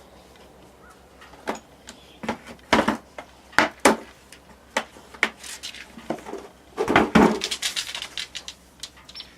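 Irregular clinks and knocks of hard objects being handled and set down, such as tools and oil-change gear, with a denser run of clatter about seven seconds in.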